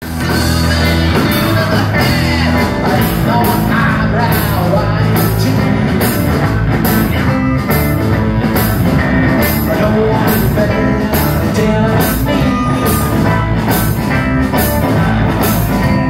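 Live rockabilly band playing loud: upright double bass plucked under a steady driving drum beat, with a voice singing.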